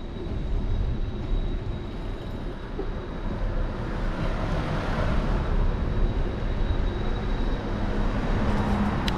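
Wind rushing over a bike-mounted action camera's microphone while riding, with a car driving past close by about four to five seconds in.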